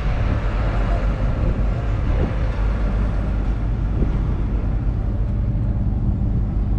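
John Deere 7530 Premium's 6.8-litre six-cylinder diesel engine idling steadily.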